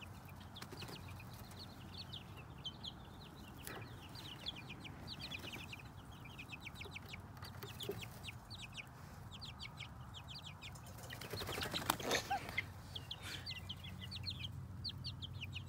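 Young chicks peeping constantly in short, high notes. About eleven seconds in, a hen flaps her wings as she flutters down from the coop doorway, with a brief cluck.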